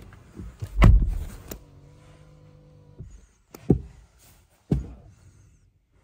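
Hyundai KONA's car door shutting with a heavy thunk about a second in, followed by a click, then a steady electronic chime for about a second and two sharp knocks inside the cabin.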